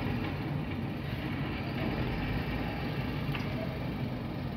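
MAN TGM 26.340 recycling truck's six-cylinder diesel engine running at low speed as the truck pulls away and turns: a steady low rumble.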